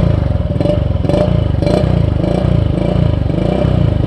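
Automatic scooter's engine running through an aftermarket MP7-regulation racing exhaust, its note swelling and easing about twice a second as the throttle works.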